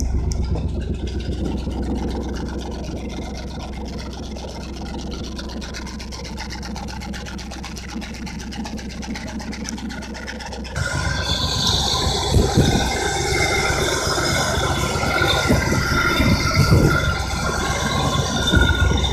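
1972 Chevrolet Corvette V8 idling steadily after its first start in a while, heard at the exhaust. About eleven seconds in it turns suddenly louder and busier, with more high-pitched mechanical clatter.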